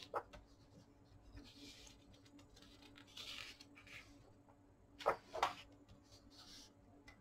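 Glossy paper pages of a large hardbound book being turned and pressed flat by hand: soft rustling and sliding of paper, with a sharp page flap just after the start and two more about five seconds in.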